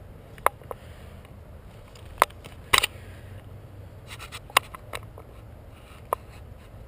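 A dozen or so sharp clicks and snaps at irregular intervals, the loudest a little over two seconds in and again just under three seconds in, over a low steady rumble.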